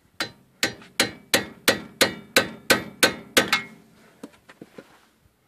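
Hammer striking metal: about ten ringing blows, roughly three a second, that stop after three and a half seconds, knocking at a socket stuck in place.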